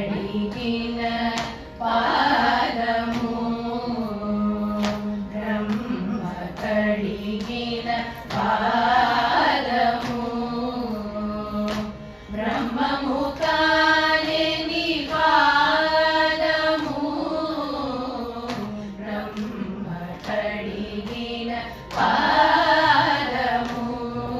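A group of women singing a Carnatic song in unison, the melody gliding between notes and holding long ones over a steady low tonic.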